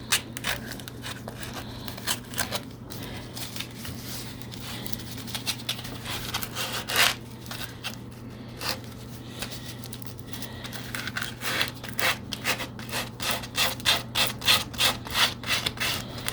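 Coarse-grit sandpaper rubbed by hand over wood in short back-and-forth strokes. The strokes are sparse at first, then come quicker and more evenly, about three or four a second, in the last few seconds.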